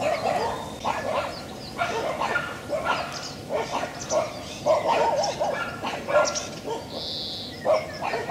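Short animal calls repeating irregularly, about one or two a second, with a brief higher-pitched note about seven seconds in.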